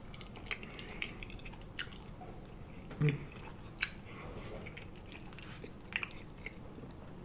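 Close-miked chewing of soft macaroni and cheese: sparse wet mouth smacks and clicks, with a short hummed "mm" about three seconds in.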